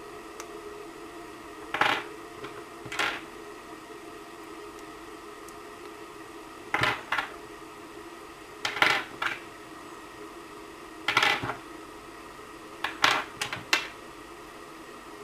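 Hard plastic clicks and clacks from small battery power connectors (T-plug and XT-60 type) being handled and pushed together. The clicks come in short clusters, some doubled, every one to two seconds.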